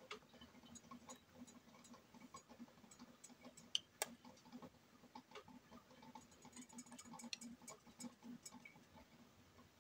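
Near silence, with faint scattered clicks and taps of a metal spoon against a tin can as thick tomato sauce is spooned out, the sharpest about four seconds in, over a faint steady low hum.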